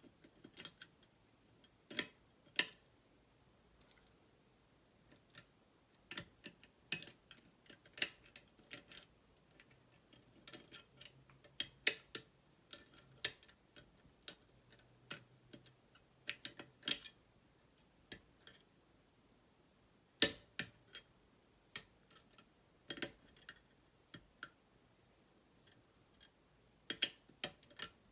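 Picking a Walsall Ace 7-lever safe lock: irregular clicks and taps of the picking tools working the levers and bolt, some much sharper than others.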